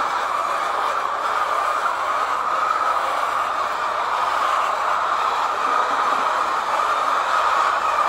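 Continuous din of a large flock of laying hens clucking all at once, blending into one steady noise.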